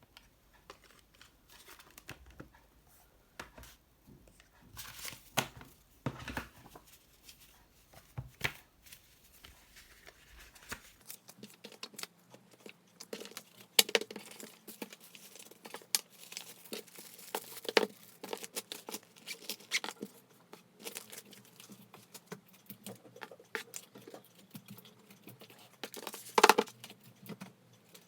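Close-up handling noises: crinkling and tearing of paper or plastic packaging, with scattered taps and clicks. The loudest rustle comes near the end.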